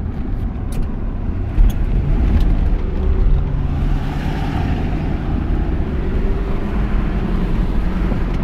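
1967 Mercury Cougar's V8 engine running under way, heard from inside the cabin with road and tyre noise, as a steady low rumble.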